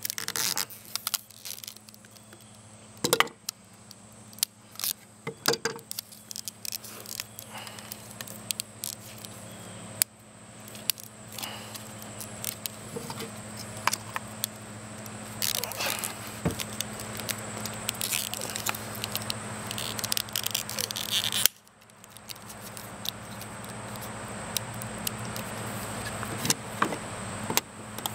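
Rusty tongue-and-groove pliers gripping and twisting the plastic end of an Eco Aqualizer tube: scattered clicks, creaks and scrapes of metal jaws working on plastic.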